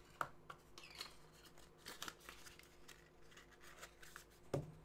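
Faint handling sounds of an ink bottle and paper on a desk: scattered light clicks and rustles, with one sharper click about four and a half seconds in.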